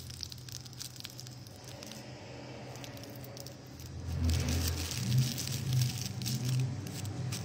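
Rolling paper crinkling and rustling between the fingers as a joint is rolled by hand, in small scattered crackles, getting louder about four seconds in, over a low steady hum.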